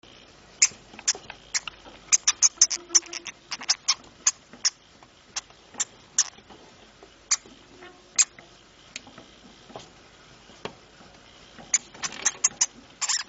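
Pet hamster making a rapid, irregular run of short, sharp high-pitched clicks and squeaks, thick in the first few seconds, sparse in the middle and thick again near the end.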